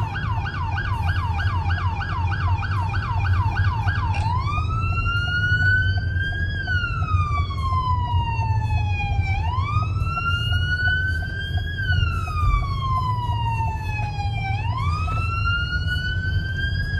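Emergency vehicle siren, on a fast yelp at first and switching about four seconds in to a slow wail, rising and falling roughly every five seconds. A steady low rumble runs underneath.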